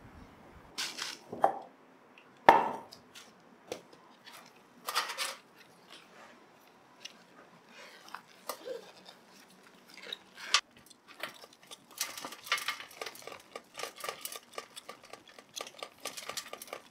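Irregular clinks, knocks and rustles of hard objects being handled, such as pots and potting materials. The loudest is a sharp knock with a short ring about two and a half seconds in, and small clicks come faster in the last few seconds.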